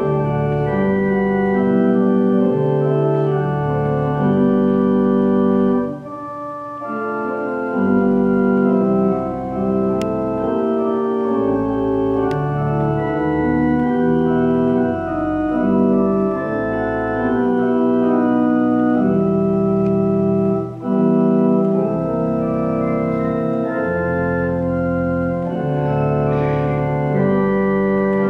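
Church pipe organ playing a hymn tune in full sustained chords that change about once a second, with brief breaks between phrases about six seconds in and again near twenty-one seconds.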